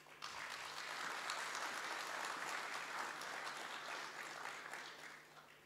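An audience applauding in a hall, starting right away and fading out over the last second or so.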